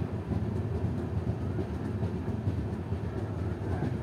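Cholan Superfast Express passenger train running along the track, a steady low rumble of the coaches' wheels on the rails.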